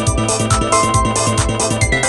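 A Nokia 1110 ringtone playing: an electronic tune with a steady quick drum beat, a bass line and a synth melody.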